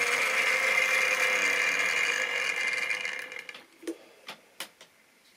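Tri-ang model diesel shunter running on the track: a steady whir of its small electric motor and wheels that fades out about three and a half seconds in, followed by a few light clicks.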